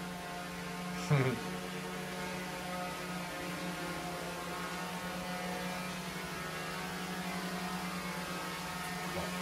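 Small camera drone's propellers buzzing steadily as it flies indoors, with a brief loud falling sweep about a second in.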